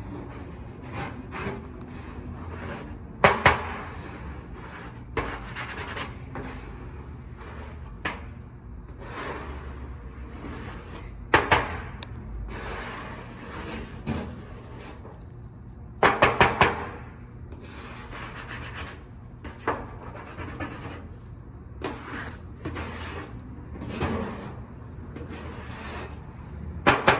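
Plastic spreader scraping paint remover across a painted car quarter panel in repeated rubbing strokes, with a few sharp knocks and clatters.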